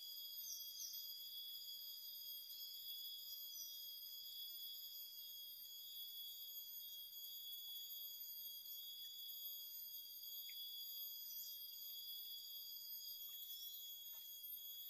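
Steady high-pitched insect chorus: several thin, unbroken tones held at once, with a few faint short chirps.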